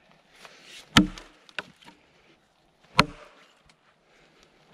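An axe chopping into a felled log: two hard strikes about two seconds apart, each a sharp crack with a short thud, and a third strike just at the end.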